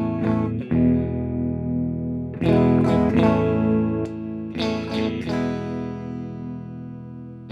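Squier Cyclone electric guitar with Josefina Fat 60s pickups, switched into Super Series, played through an amp: chords struck about once a second, each left ringing with long sustain.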